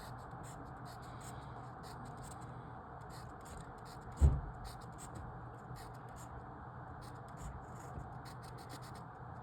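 Writing on paper: short scratchy pen strokes in quick runs, as marks are made in a logic-puzzle grid, over a faint steady hum. One low thump about four seconds in.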